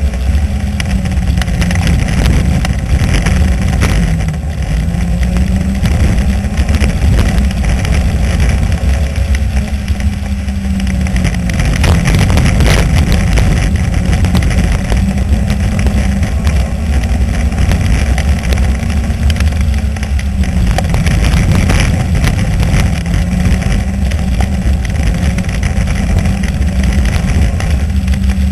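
Four-cylinder dirt-track race car engine heard from inside the car at race speed. It revs up and drops back every few seconds as the car laps the oval, over a constant rough noise of wind and the car running on the dirt.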